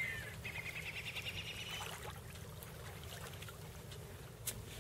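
A bird calling: a quick falling note, then a rapid trill of about a second and a half, over a low steady rumble. A single sharp click comes near the end.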